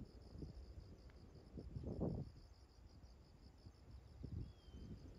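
Insects chirring in a steady, evenly pulsed high trill, over a low irregular rumble that swells briefly about two seconds in.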